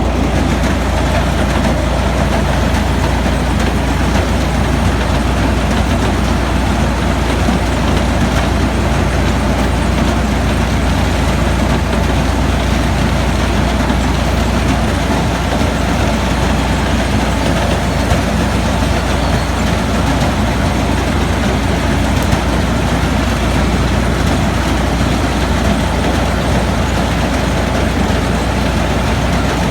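Heavy harvest machinery running steadily under load: a constant deep engine hum with a dense mechanical rumble over it.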